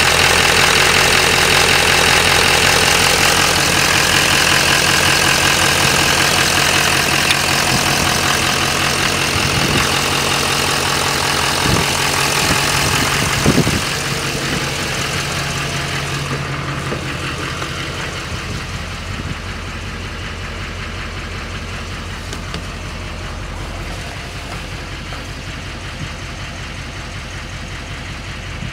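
A 6.6-litre LML Duramax V8 turbo-diesel idling steadily, with a few sharp knocks near the middle. The sound grows quieter and duller in the second half, heard from inside the cab by the end.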